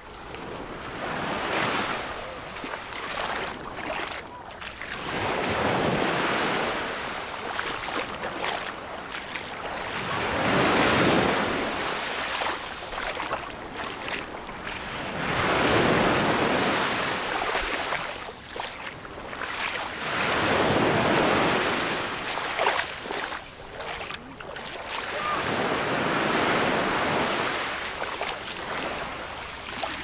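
Small Mediterranean waves breaking and washing up a sand-and-shingle shoreline, surging and receding in a regular rhythm about every five seconds.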